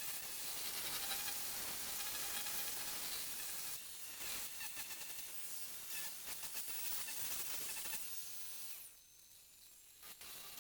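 Merlin2 miniature angle grinder with a sanding disc sanding wood: a steady hiss with a faint motor whine, turning into uneven scratching about four seconds in, then dropping away suddenly near the end.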